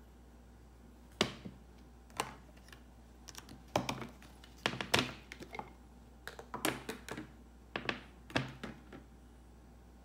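Irregular sharp taps and clicks of objects being handled on a table, some single and some in quick clusters, from about a second in until near the end.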